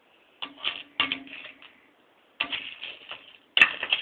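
Small hard-coated candies rattling and clattering across a non-stick frying pan as they are stirred with a wooden spoon, in four short bursts of quick clicks about a second apart.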